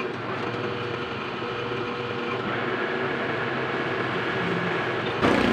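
Metal lathe running steadily with a drive shaft mounted in it, giving a steady machine hum. About five seconds in the sound turns suddenly louder and rougher.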